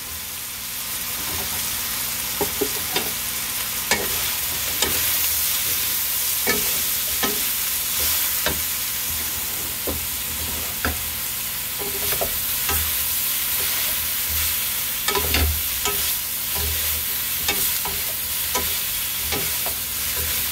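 Sliced luffa (patola) squash and ground pork sizzling in a hot stir-fry pan while two wooden spatulas stir them, knocking and scraping against the pan at irregular intervals.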